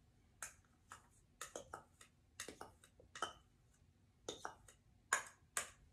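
A spoon clicking and tapping against containers as turmeric is spooned out: a dozen or so short, light clicks spread unevenly, the loudest about five seconds in.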